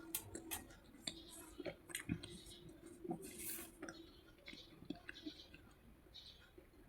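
Slate pencil being bitten and chewed close to the microphone: faint, irregular sharp crunches and clicks, over a faint steady hum.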